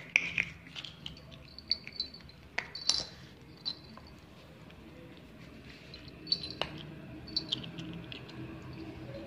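Small bells on a pet otter's collar jingle in short bursts, mixed with scattered clicks and taps as the otter rolls and squirms on a tile floor.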